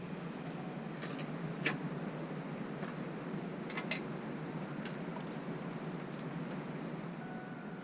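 Small metallic clicks and ticks of lockwire and pliers being handled while wiring a bolt, with two sharper clicks about two seconds apart, over a steady low hiss.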